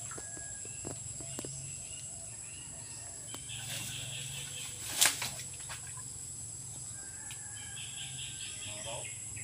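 Steady high-pitched insect chorus, with a single sharp click about five seconds in.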